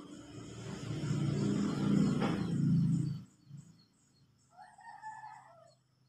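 A loud rushing noise swells for about three seconds and then cuts off sharply. A rooster crows once, briefly, near the end, while small birds chirp high and faint in the background.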